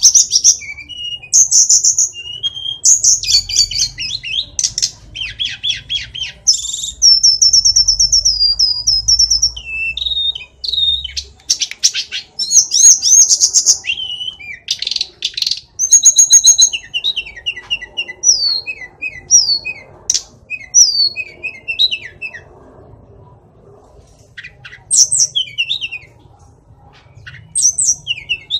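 Hill blue flycatcher (sulingan or tledekan gunung) singing a long, varied song of high whistled phrases and fast trills. The song thins to scattered short notes about two-thirds of the way through, pauses briefly, then picks up with a few more phrases near the end.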